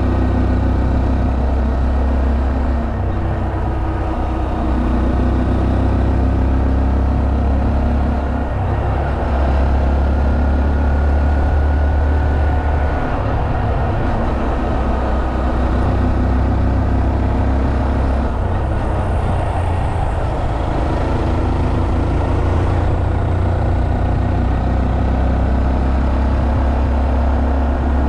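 Honda Monkey 125's single-cylinder engine running while riding, heard from the bike with steady wind rush over it; the engine note shifts a few times as the throttle changes.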